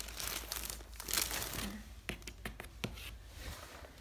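Plastic shrink-wrap on packaged fabric storage bins crinkling as the bins are handled, strongest in the first two seconds. After that come a few light clicks and taps.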